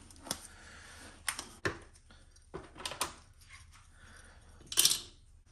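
Close handling noises: nitrile gloves being worked onto the hands, then gloved hands on the RC truck, giving scattered clicks and soft rustles with one louder, brief rustle near the end.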